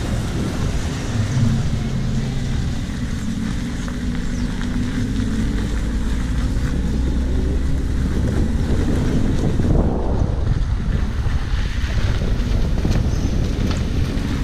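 Car driving, heard from inside the cabin: a steady low engine drone with road and wind noise, the engine note creeping slightly higher midway.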